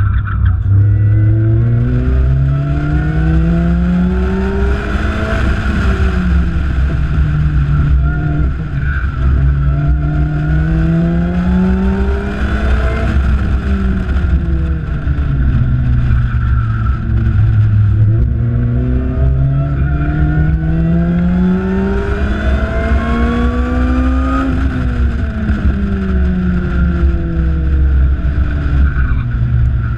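Lotus Exige S240's supercharged four-cylinder engine pulling hard on a race track. The revs climb steadily three times and fall away between each climb, over a steady rumble of wind on the microphone.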